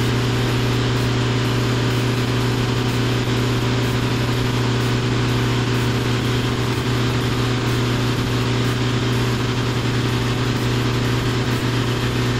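An engine running steadily at constant speed with a low, even hum.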